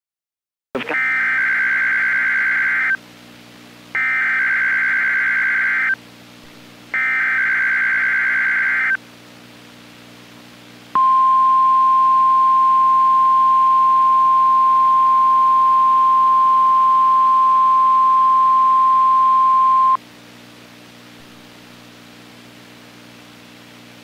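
NOAA Weather Radio Required Weekly Test alert signal. First come three raspy, warbling SAME data-header bursts, each about two seconds long and a second apart. Then the steady 1050 Hz warning alarm tone sounds for about nine seconds, over a low steady hum.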